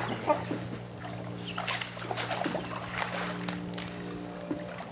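A dog swimming in a pool while tugging on a toy, water splashing and sloshing in several short splashes, over a steady low hum.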